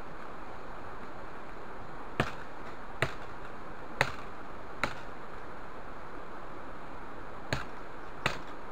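Wood being chopped with a hand tool: six sharp strikes, four about a second apart, then a pause and two more near the end, over a steady hiss.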